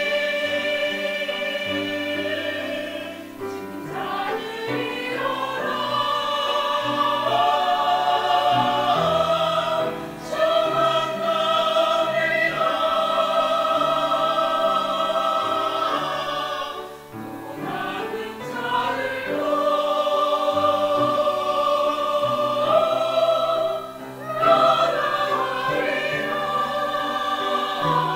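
Mixed church choir of men's and women's voices singing a hymn anthem in Korean, in long sustained phrases with short breaks between them about every seven seconds.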